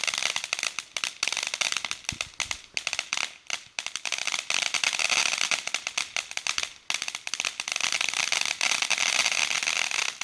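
Small consumer firework crackling: a fast, dense run of sharp little pops that goes on for about ten seconds, thins briefly twice, then stops abruptly.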